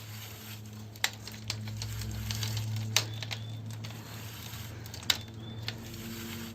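Electrical wire being pulled through the roof space: light rustling and scraping with a few sharp clicks, over a steady low hum.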